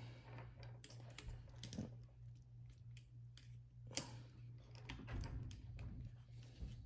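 Faint small plastic clicks and taps from a PS4 controller's shell and parts being handled, with one sharper click about four seconds in, over a steady low hum.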